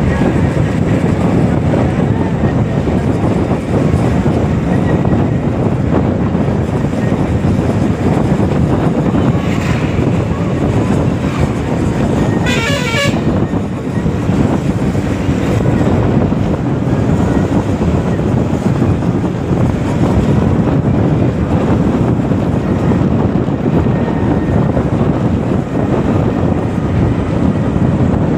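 Steady rumble of a moving vehicle with road and wind noise, and a horn sounding once, briefly, about twelve and a half seconds in.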